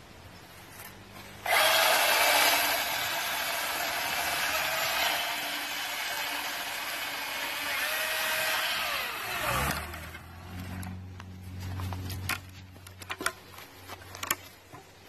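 Milwaukee M18 Fuel 16-inch cordless brushless chainsaw starting suddenly about a second and a half in and cutting through a branch for about eight seconds, then its motor winding down with a falling pitch as the trigger is let go. A few sharp knocks near the end.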